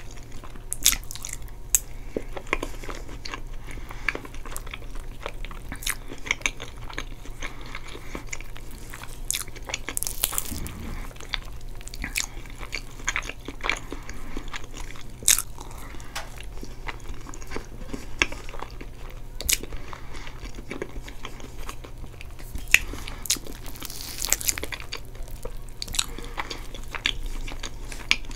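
Close-miked eating of chocolate cake with caramel sauce and whipped cream: chewing and mouth sounds with many irregular sharp clicks.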